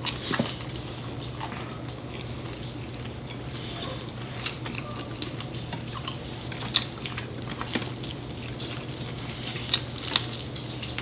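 Eating sounds from chicken wings: chewing with scattered short wet clicks and smacks, over a steady low hum.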